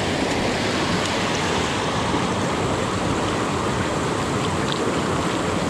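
Steady rush of a fast-flowing creek tumbling over rocks in a small rapid, heard close up.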